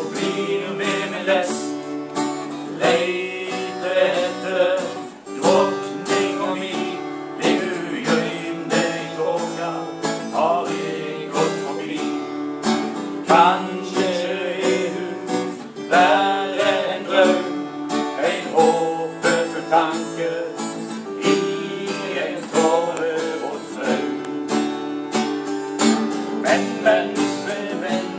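Guitar strummed in a steady rhythm, with a voice singing a song over it.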